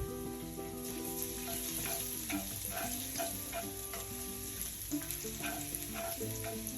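Garlic sizzling as it fries in vegetable oil in a non-stick pan, with scattered clicks of stirring in the pan.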